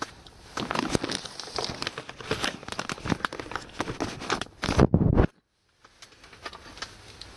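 Handling noise from the camera being moved and turned around: irregular rustling and crinkling as it rubs against clothing and fabric. A loud scrape comes just before five seconds in, then the sound cuts out suddenly for about half a second before quieter rustling resumes.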